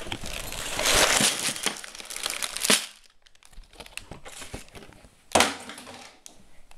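Clear plastic bags of LEGO bricks crinkling and rustling as they are handled and put down on a table, with small clicks from the bricks inside. A single sharp knock about five seconds in.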